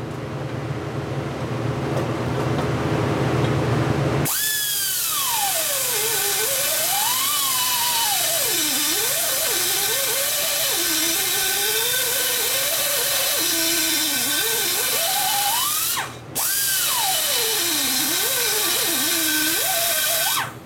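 Die grinder cutting into a knucklehead's aluminium engine case, grinding out a deep crack to prepare it for welding. About four seconds in it changes from a lower, rougher noise to a loud hiss with a whine that wanders up and down in pitch, and it breaks off briefly near the end.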